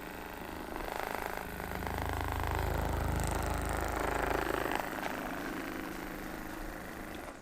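Electric massage tool running steadily during soft-tissue work, its buzz growing louder and softer as it is pressed, then switched off just before the end.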